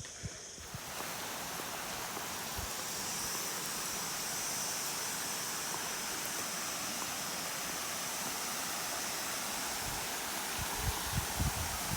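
Steady rush of fast-flowing water from a river or waterfall, cutting in abruptly about a second in. A few low thumps near the end.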